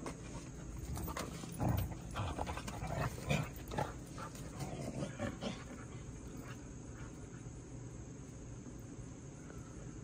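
Siberian huskies growling and grumbling at each other in rough play, as a run of short bursts in the first half. After that it falls quieter, with a steady insect drone in the background.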